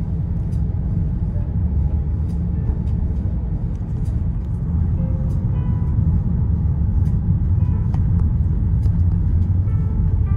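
Steady low rumble inside the cabin of a Volkswagen T-Roc 2.0 TDI driving along a street: engine and tyre noise, a little louder from about halfway through.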